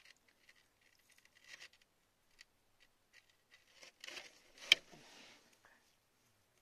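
Wet fingers handling small stones on a wet, gritty rock: faint rubbing and scraping with scattered light clicks, a busier patch of handling noise near the end with one sharp click.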